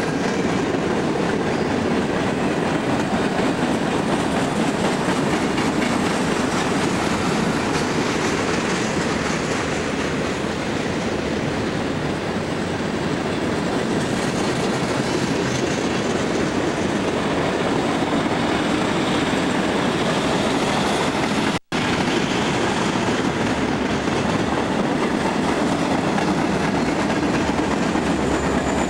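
Long freight train of covered hopper cars rolling past at close range, a steady noise of wheels on rail. Near the end the rear helper locomotives, an EMD SD40-2 leading, come alongside. The sound drops out for a split second about two-thirds of the way through.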